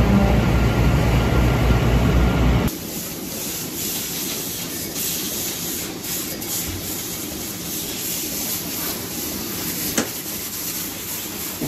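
A tractor engine running with a straw blower spreading bedding, a steady low drone with a rushing noise. About three seconds in it cuts to a steady high hiss of a water hose spraying down a milking parlour floor.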